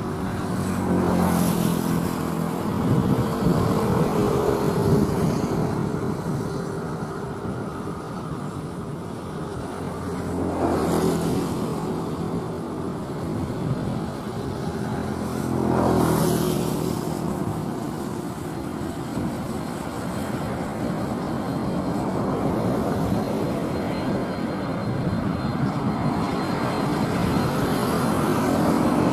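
Jet engines of a FedEx Boeing 767 freighter on landing approach, gear down: a steady, noisy rumble that gets a little louder near the end as the aircraft nears. Brief louder swells come about 1, 11 and 16 seconds in.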